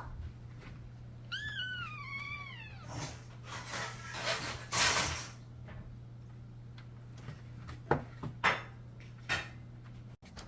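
A cat meows once, a short call that rises and then falls, about a second in. It is followed by a few seconds of soft rustling and a few light clicks.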